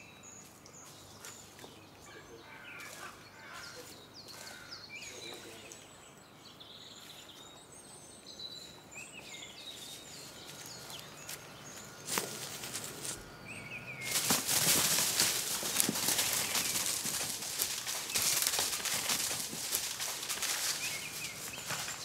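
Small woodland birds chirping with scattered thin calls over quiet forest air. About fourteen seconds in, a loud, steady rushing noise full of crackles takes over.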